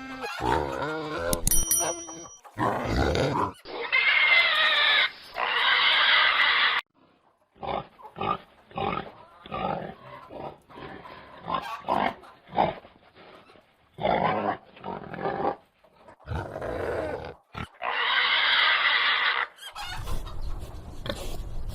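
Pigs grunting in short, irregular bursts, with two long, loud squeals: one about four seconds in and one about eighteen seconds in.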